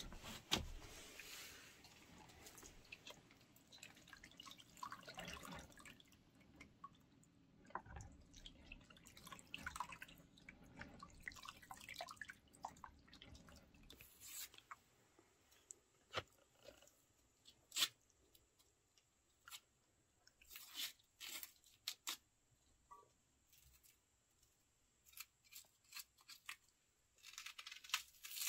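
Faint dripping and splashing as raw meat pieces are squeezed and rinsed by hand in a plastic bowl of water. About halfway it turns mostly quiet, with scattered sharp clicks and short crunching sounds.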